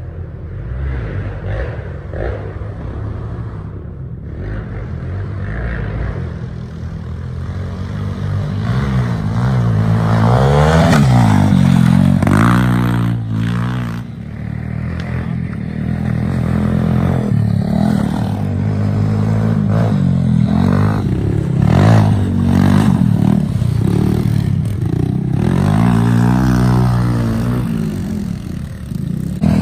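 Small four-stroke pit bike engines revving up and down under load on a dirt hill climb, the revs rising and falling in swells about a third of the way in and again near the end.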